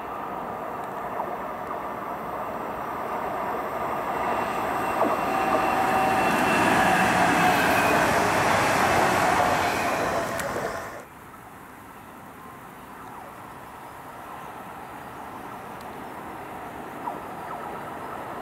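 Electric multiple-unit train approaching and passing: rail and wheel noise swells to a peak, with a faint motor whine that dips slightly in pitch as the train goes by. The sound cuts off suddenly about eleven seconds in, leaving a quieter steady background.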